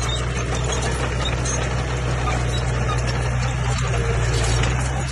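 Komatsu bulldozer's diesel engine running steadily: a low, even drone with a noisy rattle over it.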